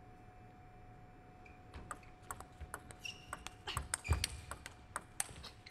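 Table tennis rally: after a short pause, a quick run of sharp clicks as the celluloid ball is struck by the paddles and bounces on the table, about a second and a half in and lasting to near the end.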